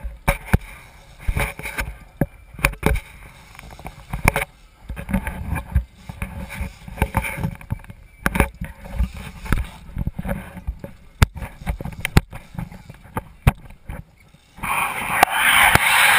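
Water sloshing against the hull of a small fishing boat, with many irregular sharp knocks and clicks. Near the end comes a loud rushing wash lasting about a second and a half.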